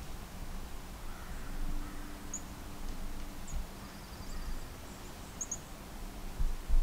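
Small songbirds giving scattered short, high chirps and a brief faint trill, over a low outdoor rumble that swells near the end.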